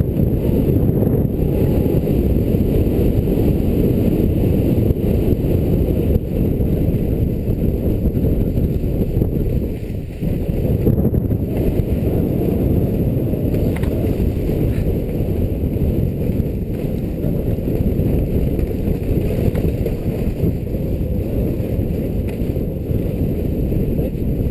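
Steady low rumble of wind buffeting an action camera's microphone while skiing fast downhill under a speed wing, easing briefly about ten seconds in.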